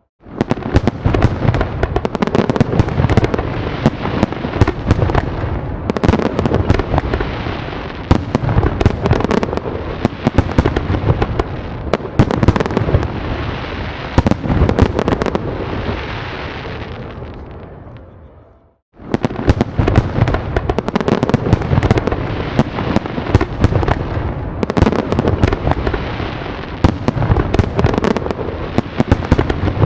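Fireworks grand finale: a dense, rapid barrage of shell explosions and crackling bangs. About two-thirds of the way through it dies away to a moment of silence, then starts again abruptly at full intensity.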